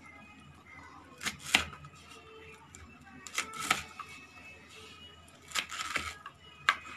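Knife chopping taro leaves on a plastic tray: short clusters of sharp cutting strokes, one cluster about every two seconds.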